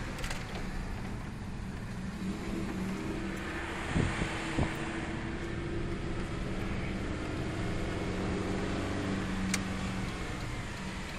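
Car engine and road noise heard from inside the cabin: a steady low rumble with a faint engine hum, and two brief knocks about four seconds in.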